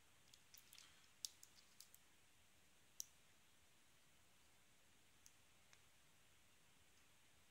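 Faint, small metallic clicks of a steel pick hook working the pins of a Squire SAL/40 five-pin padlock held under light tension: a quick cluster in the first two seconds, a sharper single click about three seconds in, then two faint ticks.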